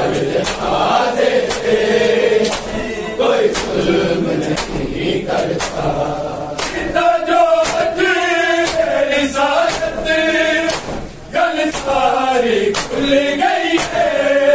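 A group of men chanting a noha, a Shia mourning lament, in unison, over a steady beat of hands slapping bare chests (matam).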